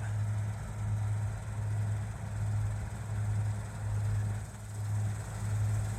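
A vehicle engine running steadily: a low hum that gently swells and fades about once a second.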